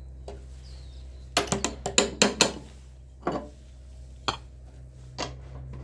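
Metal tools and hardware clinking and tapping against the mower's pulley and spindle parts: a quick run of about six clinks, then three single taps about a second apart.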